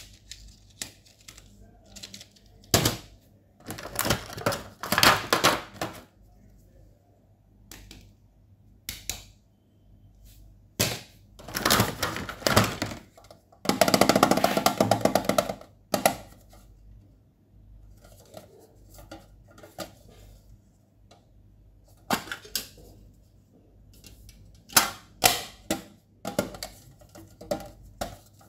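Close-up handling of stationery and its packaging: scattered taps, clicks and crinkles of cardboard, plastic and a tin pencil case. A longer rustling scrape of about two seconds comes near the middle.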